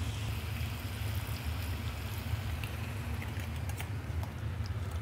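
Brandy splashed into a hot frying pan of chicken livers, the pan sizzling with scattered small crackles. Under it, a steady low hum.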